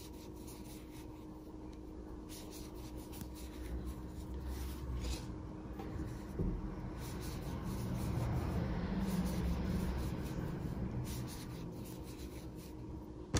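Faint, irregular rubbing and scratching of a size 4 crochet hook drawing acrylic yarn through single crochet stitches, over a faint steady hum.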